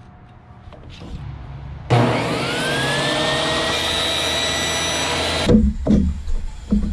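Ryobi portable table saw switched on: the motor spins up with a rising whine about two seconds in, then runs steadily as a wooden framing board is cut to length. It cuts off suddenly after a few seconds, followed by a few light knocks of wood being handled.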